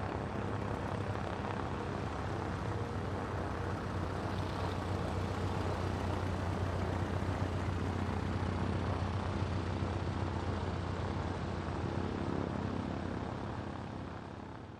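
Engine of a single-engine propeller light airplane on the runway, a steady drone with a low hum, fading out near the end.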